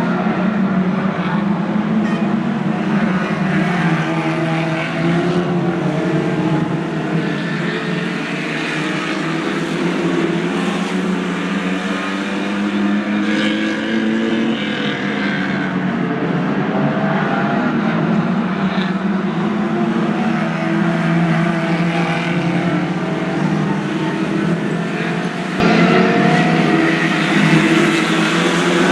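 A pack of Lightning Rods stock cars racing, several engines running together, their pitch rising and falling as the cars lap and pass. The sound gets suddenly louder a few seconds before the end.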